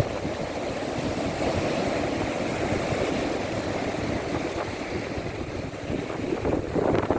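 Sea waves washing against a rocky shore: a steady rush of surf, with a louder splash of breaking water near the end.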